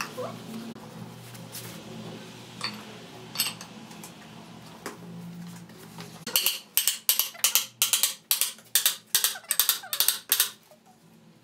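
A few light metal clinks, then about a dozen short, sharp blasts of compressed air in quick succession, roughly three a second, against an automatic transmission's open case as it is being assembled; they stop abruptly.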